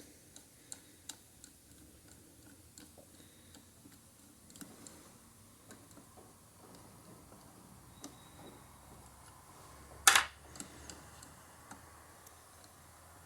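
Scattered small metallic clicks from hand tools at work on the alternator's small hex-head screws, with one loud, short, sharp clatter about ten seconds in.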